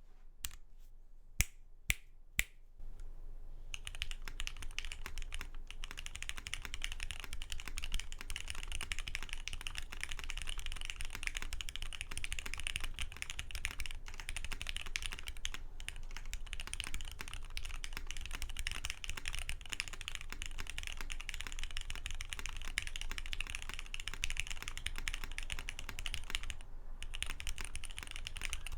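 Custom Matrix 2.0 Add mechanical keyboard with an aluminum plate, lubed Cherry MX Black linear switches and CRP keycaps being typed on: a few single key strikes in the first couple of seconds, then fast continuous typing with a brief pause near the end.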